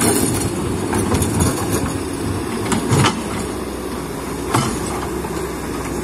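Hydraulic excavator's diesel engine running steadily under load, with a few sharp metallic clanks and knocks from the machine working among mud and stones: one at the start, one about three seconds in, and one about four and a half seconds in.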